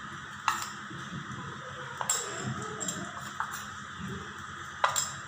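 A few light, scattered clinks and clicks of stainless steel kitchenware, such as bowls and spoons being handled and set down, over a low background hum.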